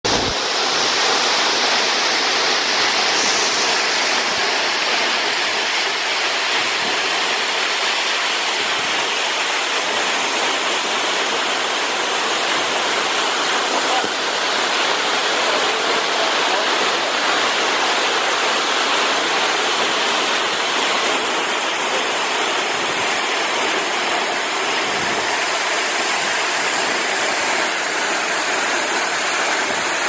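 Waterfall with a single drop of about 64 m falling into its plunge pool, and its rocky stream running below: a steady, dense rush of water.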